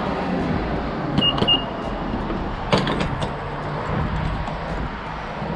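Gas station fuel pump: two short, high electronic beeps from its keypad a little over a second in, then a sharp clack a little before the middle, over a steady low hum and hiss.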